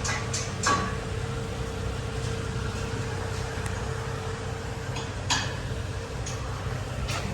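Steady low mechanical hum with a constant mid-pitched tone through it, and a couple of light clicks or knocks, one about a second in and one about five seconds in.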